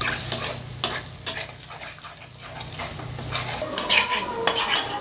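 Spatula scraping and knocking against a pan while beaten eggs fry and sizzle in oil with spiced onions, being stirred and broken into crumbles. A few sharp scrapes come in the first second and a quicker cluster about four seconds in.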